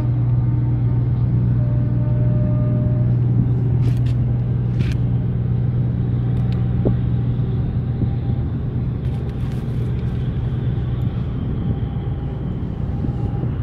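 Steady low engine drone with a constant hum and rumble. About two seconds in, a short steady tone sounds, and a few sharp clicks come through the middle.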